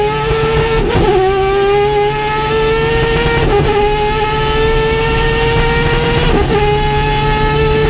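Mazda three-rotor peripheral-port 20B rotary engine in an FD RX-7 race car, pulling hard under load. Its pitch climbs steadily and dips briefly at three upshifts: about a second in, about three and a half seconds in, and about six and a half seconds in.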